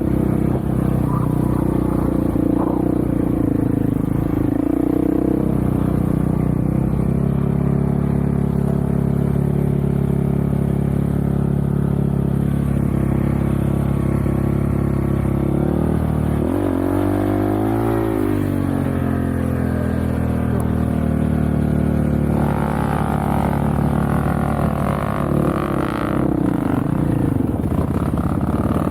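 Off-road vehicle's engine running under way, mostly holding steady revs. About two-thirds of the way in, the revs swing up and down, and they shift again shortly after.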